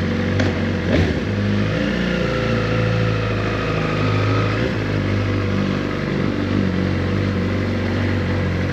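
2014 Suzuki GSX-R1000's inline-four engine, breathing through a Yoshimura slip-on exhaust, running at low revs with small shifts in pitch; a short knock about a second in.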